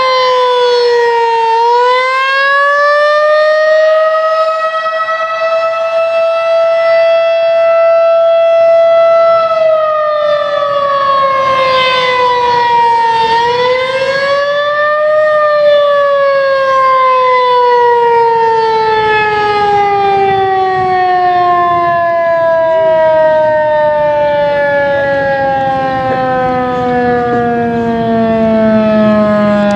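Federal Signal 2001-SRN electromechanical civil defense siren sounding a loud wail: the pitch dips and climbs, holds high for several seconds, dips and climbs again, then falls slowly and steadily through the second half.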